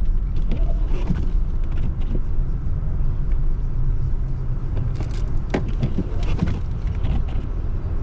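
Car driving, a steady low rumble of engine and road noise, with a few scattered clicks and knocks.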